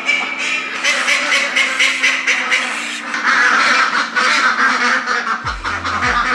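A flock of domestic ducks quacking together in a loud, continuous chorus.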